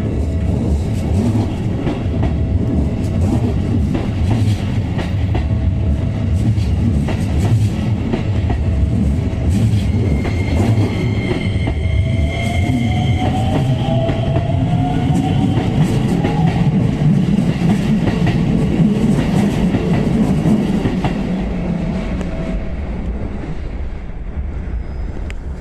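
Train running through a railway level crossing: a heavy, steady rumble with wheel clatter, with a ringing tone from the crossing that comes and goes. A whine rises in pitch around the middle, and the rumble eases off near the end.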